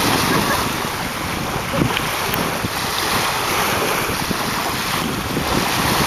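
Wind buffeting the microphone over the steady wash of small waves on open water.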